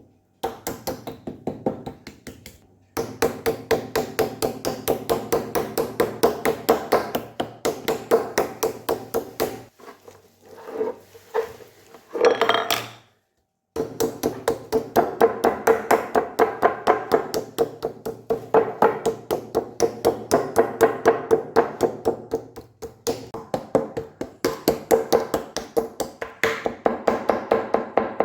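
Rapid, even knocking, about six strokes a second, in long runs broken by a few short pauses.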